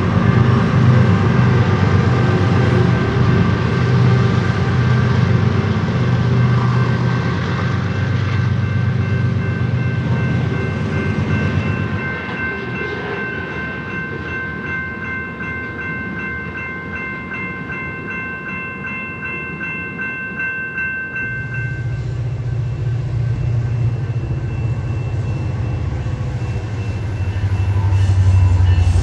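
CPKC freight train passing: diesel locomotive engines run with a deep drone for the first dozen seconds, then several steady high tones ring over a quieter rolling rumble for about ten seconds. A loud engine drone comes back after about two-thirds of the way through and swells toward the end.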